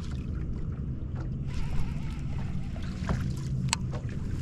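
Open-water ambience on a fishing boat: wind and water noise over a steady low hum, with a few sharp clicks in the second half.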